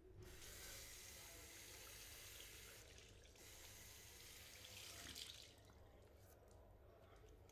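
Faint running water from a sink tap over hands, in two stretches with a short break about three seconds in. It drops away about five and a half seconds in.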